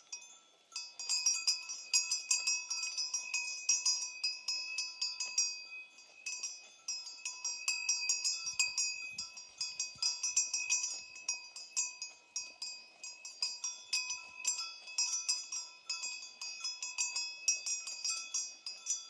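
Cowbells worn by cows clanking and ringing in quick, irregular strokes that overlap, each leaving a lasting metallic ring. There is a short lull just under a second in, then the clanking goes on without a break.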